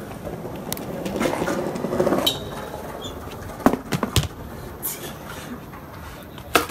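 Skateboard wheels rolling over paving stones, with several sharp clacks of the board hitting the tiles, a cluster of them about four seconds in.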